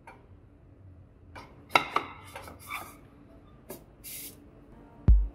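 Metal clanks and knocks of a diesel piston and steel cylinder liner being handled on a workbench, several sharp strikes close together, followed by a short hiss about four seconds in. A deep bass beat of music comes in right at the end.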